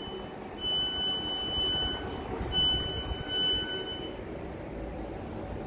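Door warning alarm of a Class 455 electric multiple unit: long, high, steady beeps of about a second and a half each, the last ending about four seconds in, over the low rumble of the standing train.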